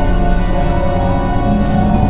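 Eerie, Halloween-style background music: held notes over a low sustained drone.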